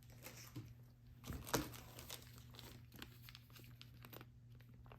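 Faint rustling and crinkling of packaging as small engine hardware is unpacked by hand, with a few light clicks and knocks, the loudest about a second and a half in.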